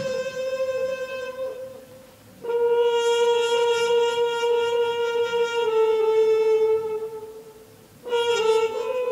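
Trumpet playing long held notes on one pitch: three sustained tones, each fading away before a short gap, the last starting about eight seconds in with a slight upward bend.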